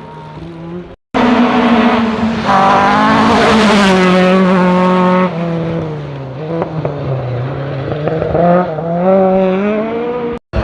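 Rally car engines at full throttle, their note climbing and dropping through gear changes, loudest over the first few seconds after a cut. The sound cuts out abruptly about a second in and again near the end as one pass gives way to the next.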